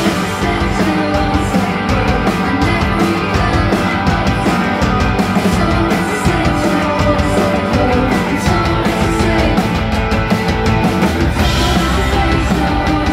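Live rock band playing loudly: electric guitars and a drum kit driving on through an instrumental stretch of the song, with steady drum hits throughout.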